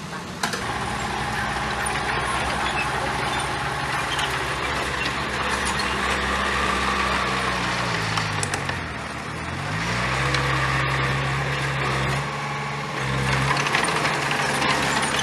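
Heavy diesel engine of earthmoving machinery running steadily under load. Its pitch sinks about seven to nine seconds in, then climbs back and holds. A sharp knock comes near the start.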